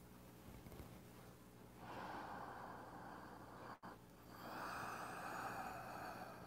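A man breathing slowly and audibly: two long breaths of about two seconds each, an in-breath and an out-breath, paced with a slow qigong movement.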